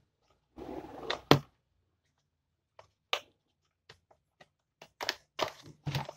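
Irregular clicks, knocks and a brief scrape of plastic and metal parts as a disassembled blender's motor unit and plastic housing are handled. The loudest is a sharp click about a second in, and there is a cluster of knocks near the end.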